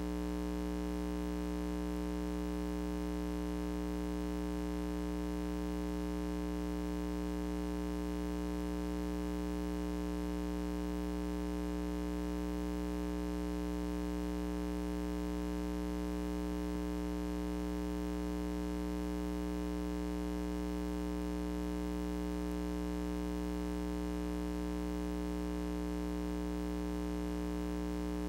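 Steady, unchanging electrical mains hum with a buzzing row of overtones and faint hiss; no other sound is heard.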